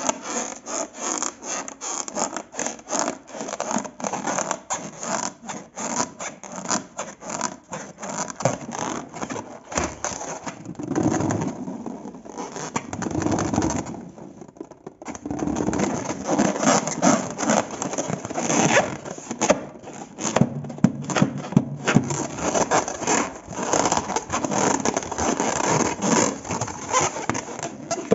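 Slime being mixed and worked by hand or tool: a fast, continuous run of sticky crackling, clicking and scraping, which turns softer and smoother for a few seconds around the middle.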